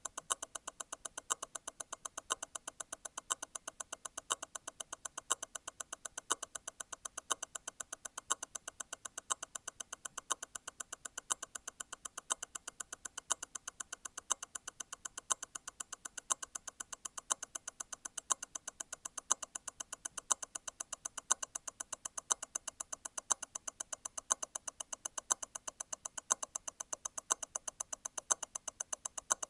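Grand Seiko T0 Constant-force Tourbillon hand-wound movement ticking steadily, its escapement beating at 28,800 vibrations per hour. A louder tick about once a second is the constant-force mechanism's stop wheel disengaging and catching again once every eight vibrations.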